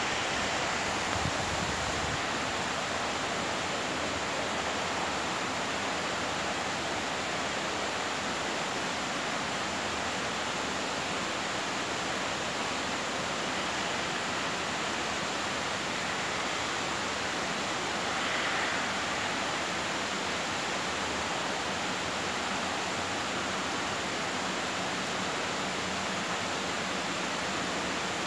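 Rain falling steadily, an even hiss that holds without letup.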